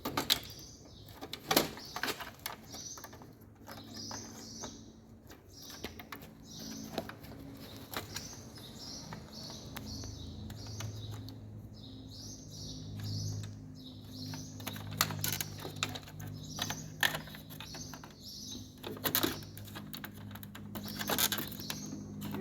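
Sharp plastic clicks and handling noise as wiring harness connectors are plugged onto a washing machine's control board. Behind them a small bird chirps over and over in quick runs of short high notes, and a low steady hum comes in about halfway through.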